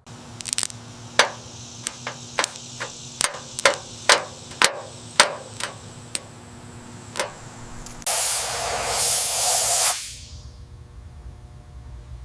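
A dozen or so sharp, irregular knocks and taps, then a loud hiss of spray for about two seconds that cuts off, leaving a low hum.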